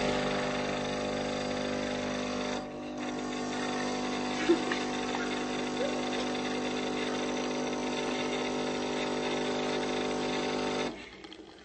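Capsule coffee machine's pump humming steadily as it dispenses coffee, with a brief dip just before 3 s in. It stops abruptly near the end.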